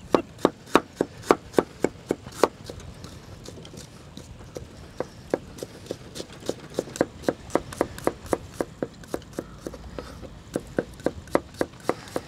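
Kitchen knife slicing ginger and then garlic on a cutting board: a quick run of crisp taps of the blade on the board, about three to four a second, softer for a stretch in the middle.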